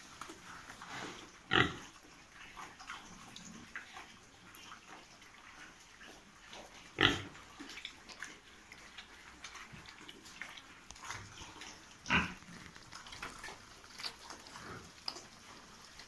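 Pigs feeding at a trough in a concrete pen, with small scattered chewing and snuffling clicks and three short, loud calls about five seconds apart.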